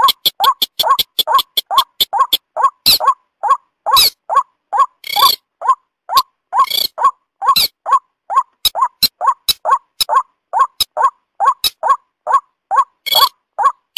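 Bird-lure recording of white-breasted waterhen (ruak-ruak) and beker calling together: a short croaking note repeated steadily, two to three times a second, with higher, harsher calls breaking in a few times.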